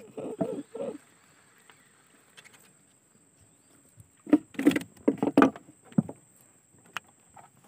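Knocks and thumps on a wooden boat's plank deck: a few soft ones in the first second, then a cluster of several loud ones about four to six seconds in.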